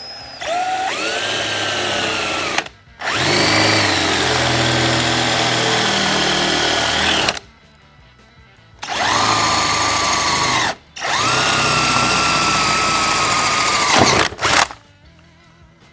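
Electric drill boring bolt holes through the metal storage panel and the Jeep body, run in four bursts of two to four seconds each. At the start of each burst its whine rises as the motor spins up.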